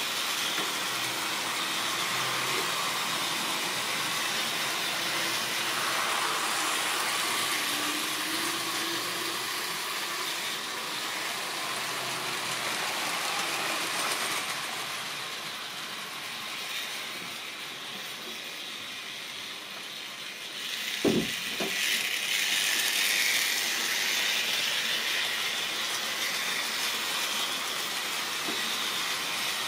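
Model railway train running on sectional track, a steady whirr and rattle of the motor and wheels over the rails. It fades a little past the middle, and about two-thirds of the way through there are two sharp knocks close together.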